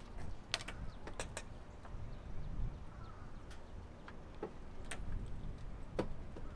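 A few scattered light clicks and taps, made as antenna parts and hardware are handled, over a low steady rumble.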